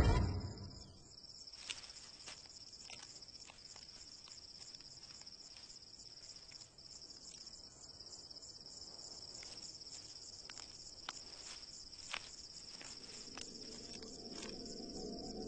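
Chorus of insects trilling steadily and high-pitched, with a few faint clicks scattered through it. Soft music comes in near the end.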